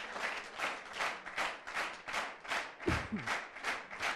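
Studio audience clapping together in a steady rhythm, about three claps a second.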